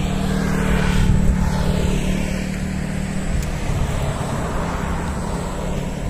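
Road traffic: a passing motor vehicle's engine making a steady low drone.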